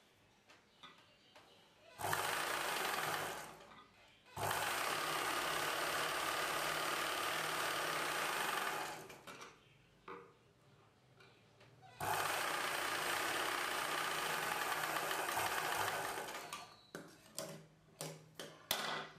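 Ralson sewing machine stitching a seam in runs: a short run about two seconds in, then two long runs of several seconds each with quiet pauses between. Near the end come a few short bursts of stitching.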